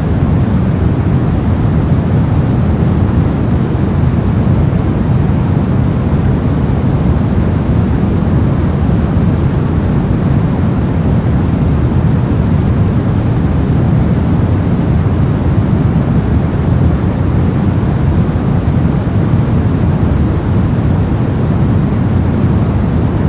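Brown noise: a steady, unchanging deep rushing hiss, strongest in the low end and fading toward the treble.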